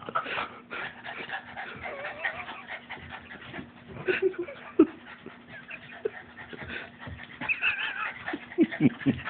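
Boston terrier whining and panting as it struggles to shove a heavy piece of petrified wood around. Scattered knocks and scuffs come from the stone-heavy wood and the dog's feet, and a higher wavering whine follows near the end.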